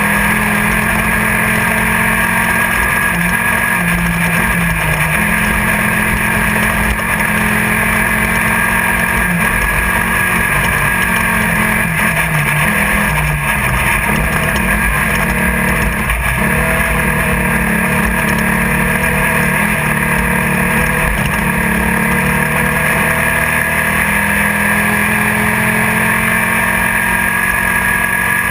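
Class 1600 desert race buggy's air-cooled VW 1600 engine running hard at steady high revs, heard from inside the car, with the pitch wavering slightly as the throttle changes, over continuous rattle and rushing noise from the car at speed.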